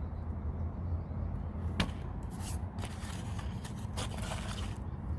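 A few short hissing squirts from a spray bottle of soapy water, misting propane fittings for a leak test. They come about two seconds in, and again nearer the end, over a steady low rumble of wind on the microphone.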